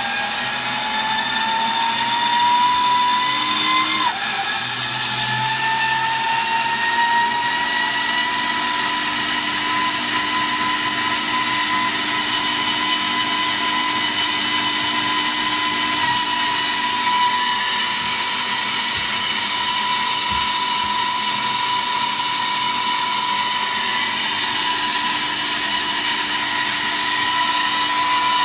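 Micro hydropower turbine and generator running with a steady whine and a rushing hum. The whine rises in pitch, drops suddenly about four seconds in, then climbs again and holds steady while the unit is generating.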